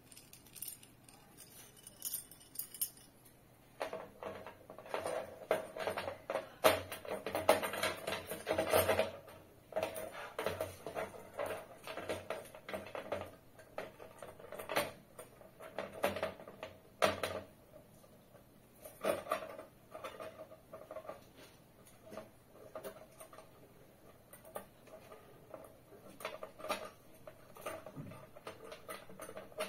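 Light metallic clinks and clicks from a small wrench, screws and a metal mounting bracket being handled and fitted onto the base of a plastic LED ceiling light, with a denser stretch of handling noise a few seconds in.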